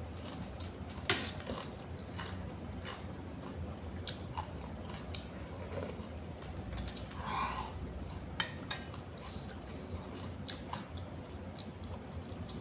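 Close-up eating sounds: chewing with scattered crisp crunches and clicks.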